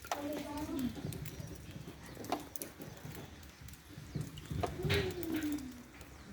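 An animal gives two low calls, each under a second long and falling in pitch, about four seconds apart, with scattered light clicks and knocks between them.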